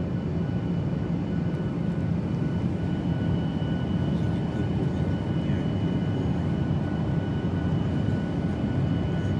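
Airliner cabin noise: a steady low rumble of engines and airflow, with a faint thin whine held above it.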